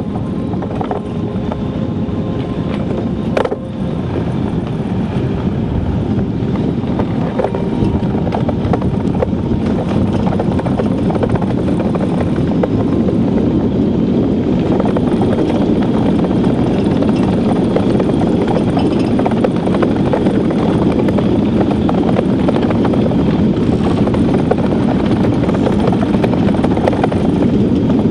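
Steel runners of an ice yacht rumbling across black ice at speed, mixed with wind rush. The steady rumble builds over the first several seconds, and a single sharp click comes about three and a half seconds in.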